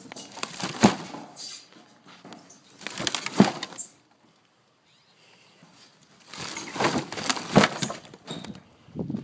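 Loose wooden boards in a wood pile knocked and shifted, giving three bursts of clattering knocks with a near-silent pause in the middle.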